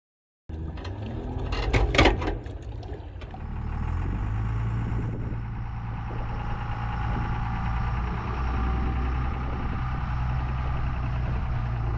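An engine running steadily, with a loud clunk about two seconds in. The sound starts abruptly about half a second in.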